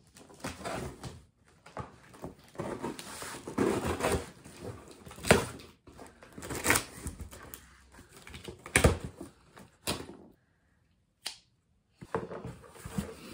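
Trauma shears cutting through the packing tape and cardboard of a parcel: scraping and crinkling with several sharp snaps as the tape gives way, and the box being handled and its flaps pulled open. The sounds are irregular, with a brief silent gap about two-thirds of the way through.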